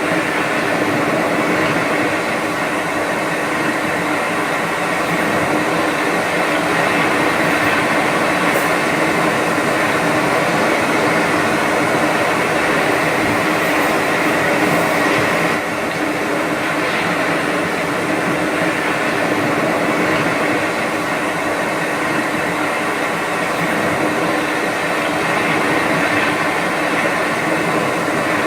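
A steady, continuous hum: an even rushing noise with faint constant tones running under it, unchanging apart from a slight dip in level about halfway through.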